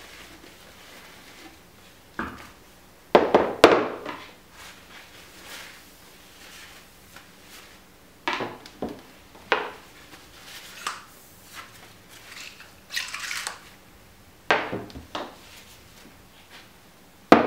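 Metal parts of a RockShox Boxxer downhill fork knocked and set down on a workbench: a loud clatter of knocks about three seconds in, then scattered single knocks and a short rub a little past halfway.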